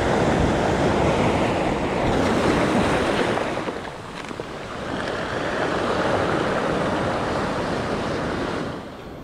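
Surf breaking and washing up over a cobble beach, in two surges that swell and fall back.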